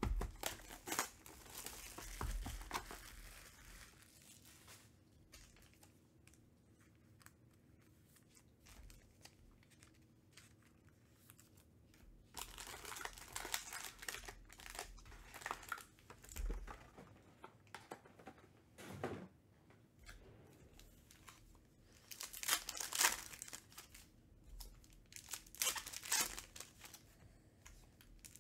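Trading-card box and packs being opened by hand: wrappers tearing and crinkling in several bursts, with quieter gaps of handling between.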